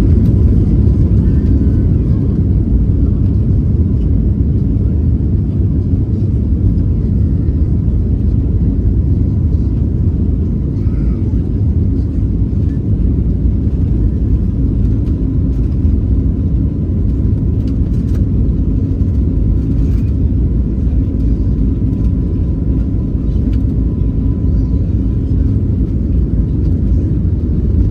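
Steady low rumble of an airliner heard from inside the passenger cabin.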